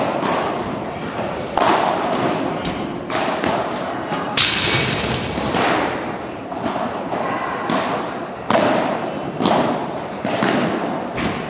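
Padel ball impacts: solid racket strikes and bounces on the court and glass walls, each hit echoing in a large hall. The loudest, sharpest hit comes about four seconds in.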